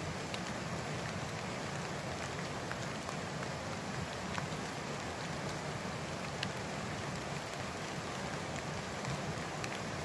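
Light rain pattering steadily, with scattered single drops ticking.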